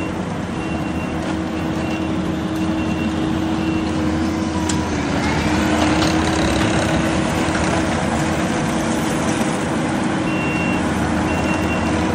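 Kubota SVL75 compact track loader's diesel engine running steadily while it drives its rotary broom attachment across the asphalt. A backup alarm beeps in an even series at the start and again near the end.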